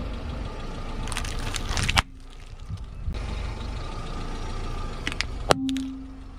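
Car tyre rolling over plastic-wrapped M&M's packets, crackling and crunching, with a loud crack as they burst just before a cut about two seconds in. Then the tyre crushes a row of hard plastic ladybug toys: a few clicks and one sharp snap near the end, all over a low car engine rumble.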